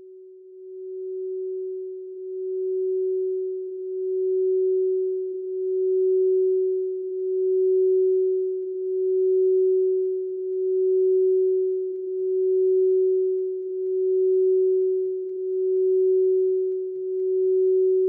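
A single steady pure tone, like a drone, that fades in over the first few seconds and then swells and fades evenly about every second and a half.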